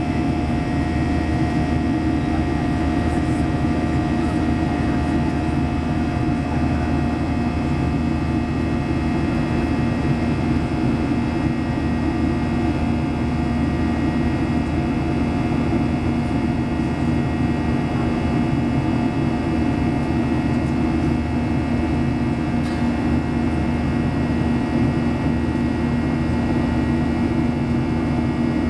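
Cabin noise of a Boeing 737-800 in flight: the steady drone of its jet engines and the airflow over the fuselage, with a few faint held tones over it.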